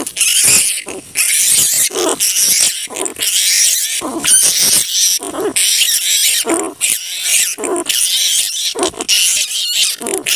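Large flying foxes (kalong) calling: a dense chatter of shrill, high screeches, broken roughly once a second by short, harsher, lower squawks.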